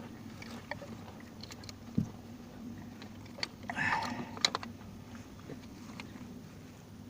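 Small clicks and knocks of parts and tools being handled while the engine bay is closed up after a spark plug change, with a dull thump about two seconds in and a short scraping rustle around four seconds, over a steady low hum.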